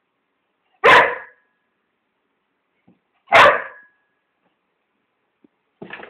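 A dog barking twice, about two and a half seconds apart, each bark loud and short. Faint scattered knocks follow near the end.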